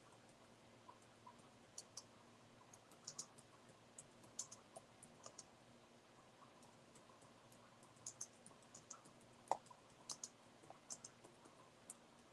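Faint, irregular clicks from working a computer's mouse and keys, in two spells with a lull of about two seconds in between, over near-silent room tone.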